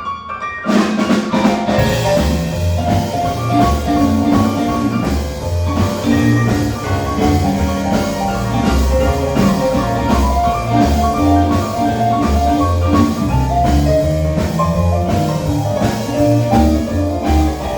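Live rock-and-roll band playing an instrumental break with no vocals: drum kit keeping a steady beat under bass and a melodic lead line. There is a brief stop at the very start, and the full band comes back in under a second later.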